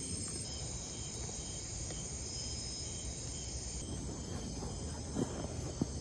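Night chorus of crickets and other insects: steady high-pitched trilling with a short chirp repeating about twice a second. A couple of soft knocks near the end.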